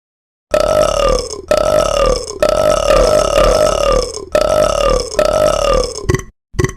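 A string of loud burps: five long ones of about a second each, each sliding slightly down in pitch, then two short ones near the end.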